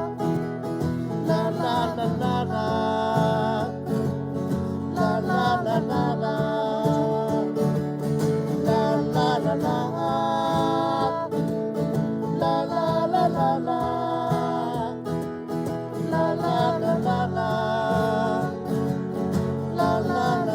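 Acoustic guitar strumming with a wordless sung melody carried over it, steady throughout.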